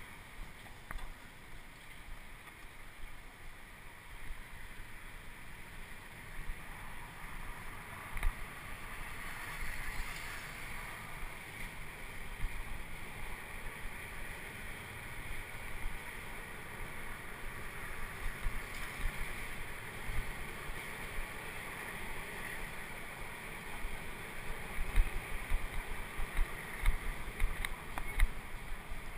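Steady wind rush on the microphone with road rumble from a moving bicycle. A run of sharper bumps and knocks comes over the last few seconds.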